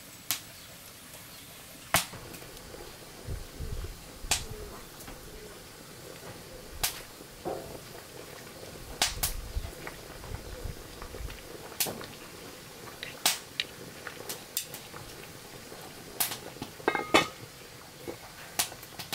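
Cooking at a wood-fired stove: scattered sharp clicks and knocks of chopsticks stirring sticky rice in a steaming pot, over a steady hiss. Near the end a metal pot lid clinks on.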